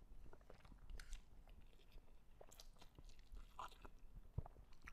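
Faint sounds of a person eating fried instant noodles: slurping noodles in and chewing, with small scattered clicks.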